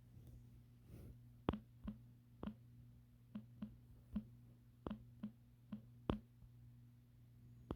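About a dozen sharp clicks at uneven intervals, over a steady low hum.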